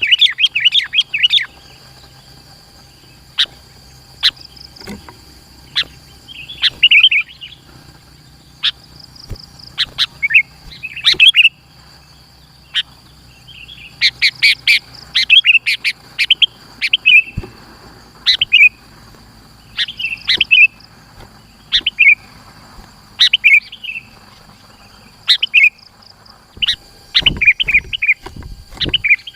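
Sooty-headed bulbul (kutilang) in full, lively song: short bubbling, pitch-bending phrases every second or two, at times packed into quick runs.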